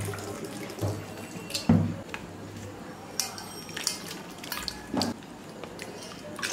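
Water sloshing and dripping with scattered clinks and knocks of pots, dishes or utensils, as in washing up or rinsing food. The loudest knock comes a little under two seconds in.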